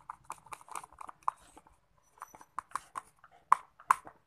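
Slime being squeezed and worked in the hands, giving off an irregular string of short wet clicks and pops, a few a second. The loudest come near the end.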